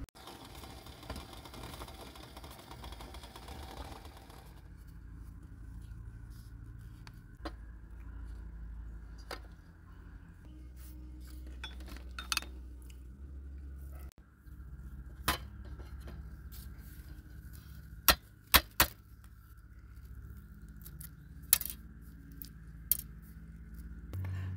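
Dishes and food being handled on a camp table: scattered sharp clinks and taps of a stainless steel plate, a glass jar and eggs being set down and picked up, with three quick clinks close together about three-quarters of the way through. A soft rushing hiss fills the first few seconds.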